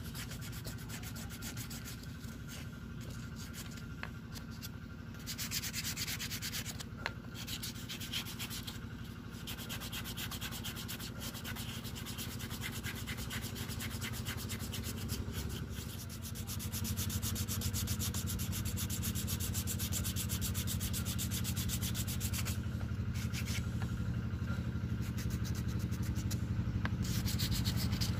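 Hand file rasping back and forth on a knife handle, a continuous scraping rub. A low engine-like hum grows louder in the second half.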